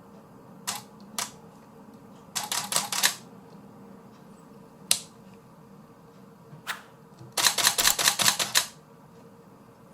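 Canon 5D Mark III's shutter and mirror firing while the repaired camera is put through a test. It fires two single shots, then a short burst of about seven frames in continuous shooting, two more single shots, and near the end a longer burst of about a dozen frames.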